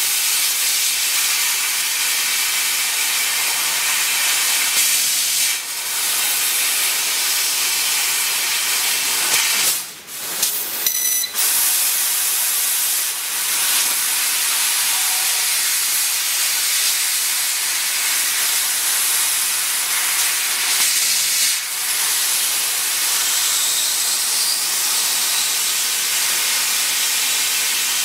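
6000 W fiber laser cutter cutting 14 mm stainless steel plate: a steady, loud hiss of assist gas jetting from the cutting head through the cut. The hiss cuts out briefly about ten seconds in, then starts again.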